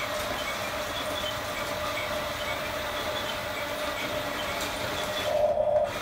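Huina 1569 radio-controlled toy bulldozer's electric drive motors and gears whining steadily as it crawls on its tracks, growing louder for about half a second near the end.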